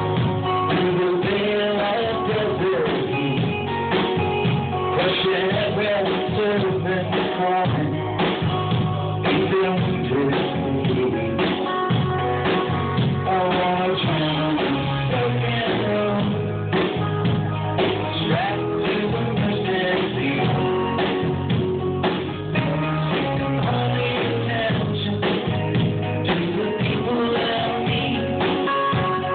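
Live rock band playing a long instrumental stretch of a song, with guitars and a drum kit, sounding muffled as heard through a phone's microphone.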